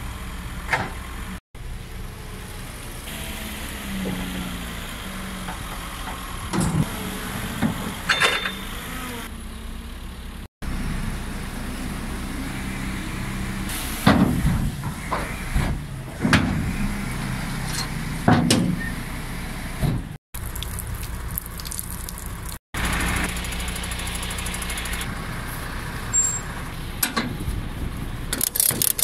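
Forklift engine running steadily, with intermittent metallic clanks and knocks of loading. Near the end come the short clicks of a ratchet strap being tightened.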